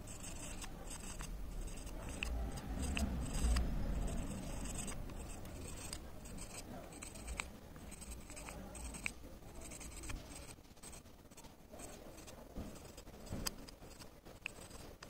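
Old hacksaw blade scraping debris out of the gaps between the copper segments of a starter motor armature's commutator, in short repeated scratchy strokes with small clicks. The strokes are busiest and loudest in the first few seconds, then come more sparsely.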